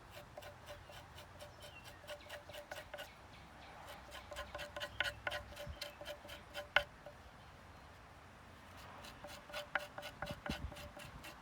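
Jute twine being scraped against an old cutting board to fuzz up its fibres for a tinder bundle: quick, regular rasping strokes at about four a second. There is one sharp click about two-thirds through, then a short lull before the strokes pick up again near the end.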